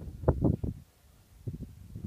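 Wind buffeting a phone's microphone in uneven low gusts, with a short lull about a second in.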